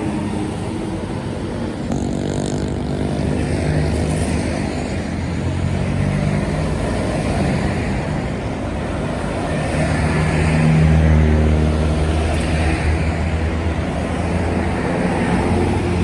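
Large bus diesel engine running and moving off, a low steady drone that swells about ten seconds in.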